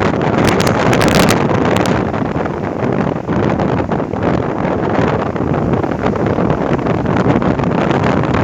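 Strong storm wind buffeting the microphone, with crackling gusts in the first two seconds, over the steady rush of rough sea surf breaking on the beach.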